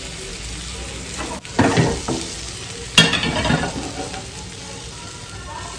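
Egg and bitter melon frying in a nonstick pan with a steady sizzle. A metal spatula scrapes and stirs through the food about one and a half seconds in, and there is a sharp clank about three seconds in as the pan is lifted off the stove.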